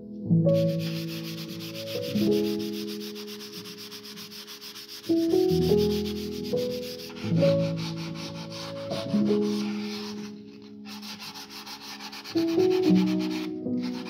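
Sandpaper rubbed by hand over the bare wood of a small box stripped of its old varnish, in quick back-and-forth strokes, pausing briefly about ten seconds in and again near the end. Soft piano chords play underneath.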